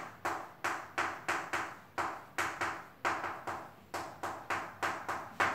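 Chalk writing on a blackboard: a quick, even run of chalk strokes, each a sharp tap with a short scrape, about three or four a second.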